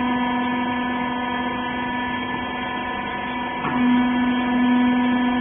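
Wiper-rag bagging baler's hydraulic power unit running with a steady hum. There is a brief knock about three and a half seconds in, after which the hum is slightly louder.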